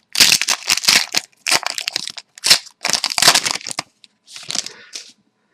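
Plastic wrapper of a hockey trading card pack being torn open and crinkled in irregular crackling bursts, stopping about five seconds in.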